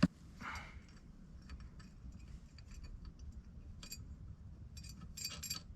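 Faint, scattered clicks and clinks of small metal parts and hardware being handled and set down, with a quick cluster of clicks near the end.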